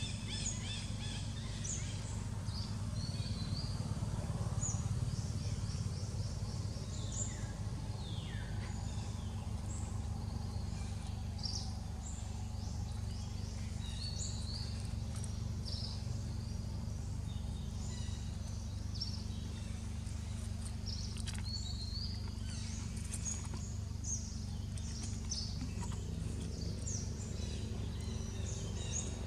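Outdoor ambience: a steady low rumble under scattered short, high-pitched animal chirps and squeaks, several of them falling in pitch.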